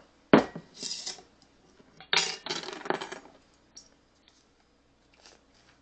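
Metal screw lid of a glass mason jar being opened and handled: a sharp clack near the start, a brief scrape, then a cluster of metal clinks and clatter about two to three seconds in, and a few faint light ticks after.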